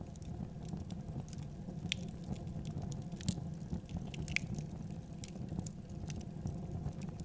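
A wooden paddle stirring dry rice grains in a wide pan: a steady rustling scrape with scattered sharp little clicks.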